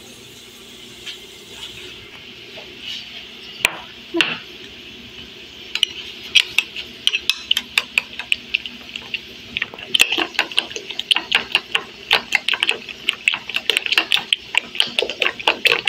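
Raw duck eggs being beaten with a metal utensil in a ceramic bowl: the utensil clicks against the bowl, sparsely at first, then in a rapid run from about six seconds in that gets faster and louder after about ten seconds.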